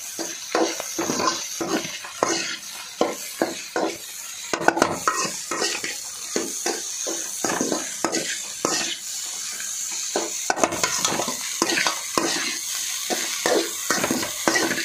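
Metal spatula stirring and tossing fried rice in a hot metal pan, scraping and knocking against the pan about two to three times a second, over a steady sizzle of frying.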